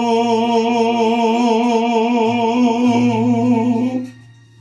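A male cải lương singer holding one long sung note with a wide, even vibrato, which stops about four seconds in.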